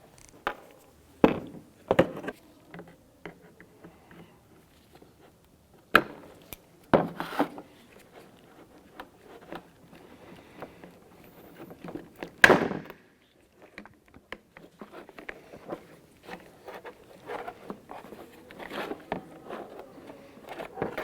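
Hand tools knocking, clicking and scraping on a car door's inner metal and plastic parts during lock actuator removal. Several sharp knocks come about one and two seconds in, more around six to seven seconds in, and the loudest about twelve seconds in, followed by a run of small clicks and rattles.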